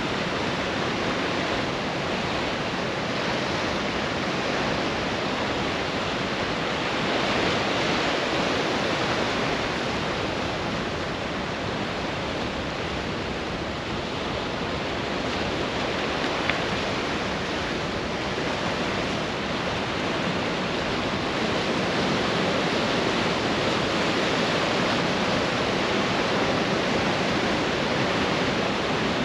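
Pacific surf breaking and washing up a sandy beach, a continuous rush of waves that swells louder about seven seconds in and again in the last third.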